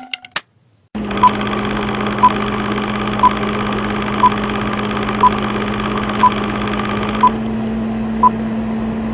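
Film-projector running sound, a steady mechanical whirr, with a short high beep once every second, as in a film-leader countdown. It starts about a second in after a few faint clicks.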